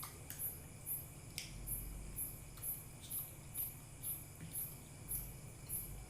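A cricket chirping steadily in very high-pitched pulses, about two to three chirps a second, with a few faint clicks mixed in.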